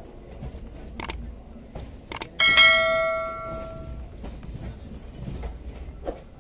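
An EMU local train passing close by with a steady low rumble and a few sharp clicks. About two and a half seconds in, a single loud metallic clang rings out like a struck bell and fades away over about a second and a half.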